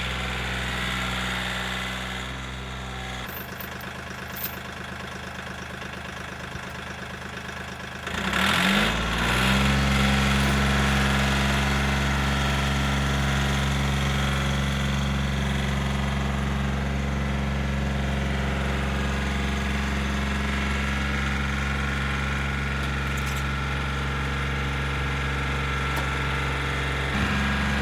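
A large engine running steadily at idle; about eight seconds in it revs up and then holds a steady, faster run.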